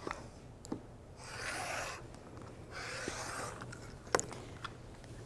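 A rotary cutter rolling along an acrylic ruler through folded layers of fabric on a cutting mat, trimming the edge straight: two cutting strokes of about a second each, with a few light clicks of the ruler and cutter.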